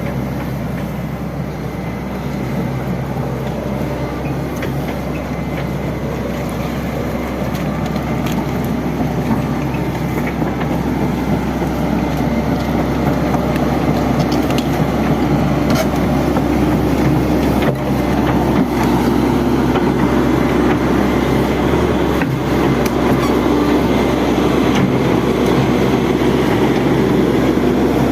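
Hitachi Zaxis 110 long-reach excavator's diesel engine running steadily, growing gradually louder over the course of the sound.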